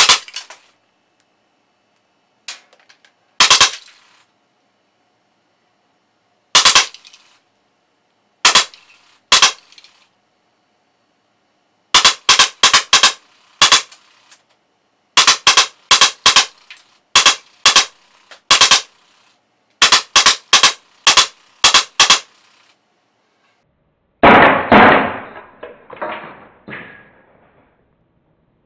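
Drozd Blackbird CO2 BB gun firing: sharp single shots a few seconds apart, then short rapid bursts of several shots each. Near the end comes a denser, duller run of rapid reports.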